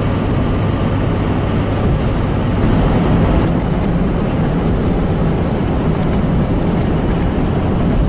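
A vehicle driving on a snow-covered road, heard from inside the cab: steady engine and tyre noise with a low hum underneath.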